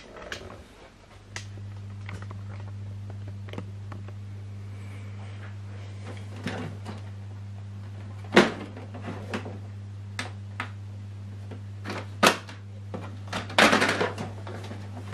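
Plastic clicks and knocks from an HP DeskJet 4120e inkjet printer's top cover being lifted and lowered by hand. There are sharp knocks about 8 and 12 seconds in and a clattery run near the end, over a steady low hum.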